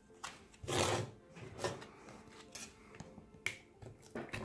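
A thin steel pry tool scraping and knocking against the edge of a cracked smartphone display as it is worked in under the glued-in screen: a handful of short scrapes and taps, the loudest about a second in.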